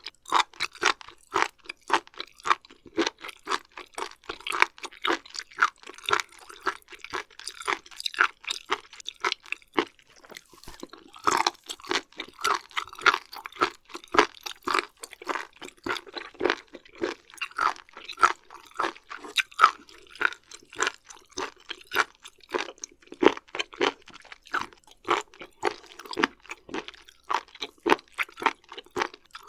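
Close-miked chewing of raw beef liver and omasum: a steady run of short, crunchy chewing clicks and smacks, a few each second.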